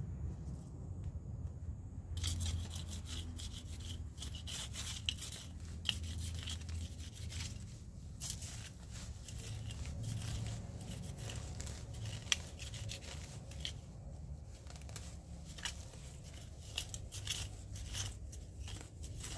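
Weeds being pulled and cut by hand with a small garden tool: irregular rustling, tearing and scraping of stems and leaves with sharp clicks now and then, starting about two seconds in.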